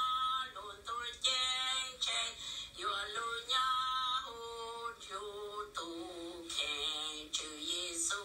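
A singing voice carrying a melody of held notes that slide from one pitch to the next, heard as background music.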